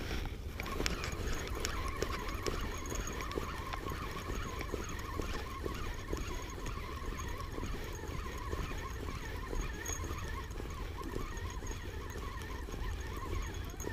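Faint outdoor ambience: a steady low rumble under an even hiss, with scattered small clicks and faint, wavering high squeaks.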